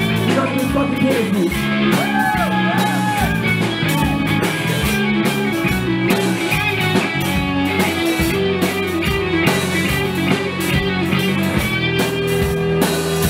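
Rock band playing live: electric guitars, bass guitar and drum kit, with a steady drum beat.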